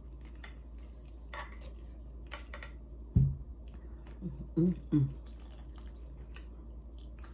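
Eating sounds: a metal fork clicking and scraping against a plate and ceramic bowl as mac and cheese and other food are scooped up, with a dull thump about three seconds in. Around four to five seconds there are a few short closed-mouth hums.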